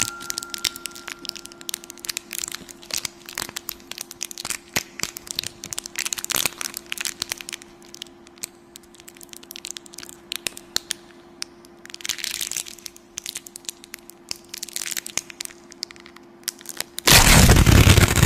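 Crunching, crackling sound effect made of dense irregular cracks over a steady low hum, thinning out partway through, with a loud rush of noise breaking in near the end.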